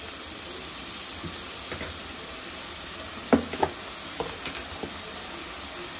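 Sliced onions frying in oil in an aluminium pot, a steady sizzle. Two sharp metal knocks a little over three seconds in, with a few lighter taps after.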